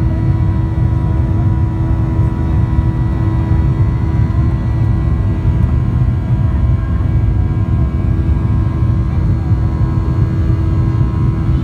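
Cabin noise of a Boeing 737-800 heard from a seat by the wing: a steady rumble with the whine of its CFM56-7B turbofan engines holding a constant pitch.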